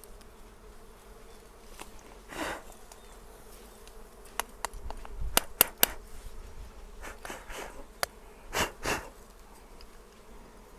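Dwarf honey bees buzzing in a swarm around a freshly cut comb, a steady faint hum. Several sharp clicks come about halfway through, and a few short swells of noise come near the start and later on.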